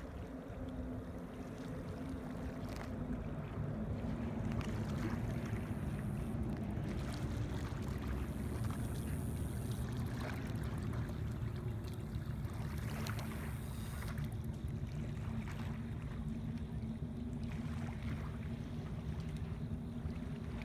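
Ohio River water lapping along the bank in small scattered splashes, over a steady low rumble.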